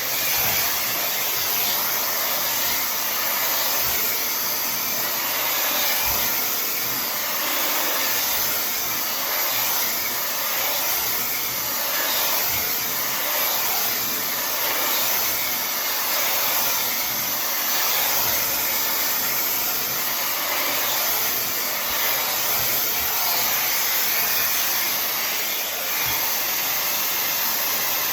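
Tymo Air Hype hair dryer running steadily while drying hair, a constant rush of air with slight swells in level.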